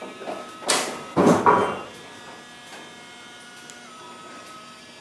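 3D pen's filament-feed motor running with a steady, thin whine made of several tones, dipping slightly in pitch near the end. It is the weird noise the pen makes while extruding. About a second in, two short loud noisy bursts of handling noise stand out above it.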